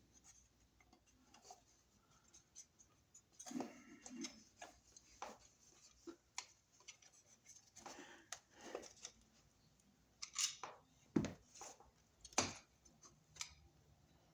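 Scattered small clicks, taps and scrapes of a wall receptacle and its stiff copper wires being handled and pushed toward an electrical box, with a few sharper knocks about eleven and twelve seconds in.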